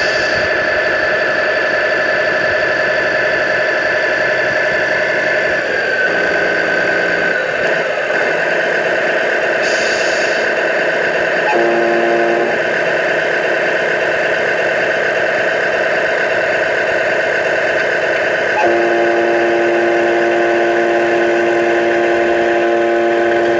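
Electronic engine sound from a 1:14 scale RC Scania 113 truck's sound module: a steady synthetic diesel drone whose tone shifts abruptly a few times. A short hiss comes near the start and again about ten seconds in.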